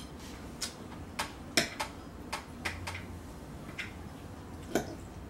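A metal fork clicking against a dinner plate in about nine scattered light ticks while salad is picked up to eat.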